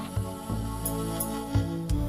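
Instrumental background music with held notes over a repeating low bass note.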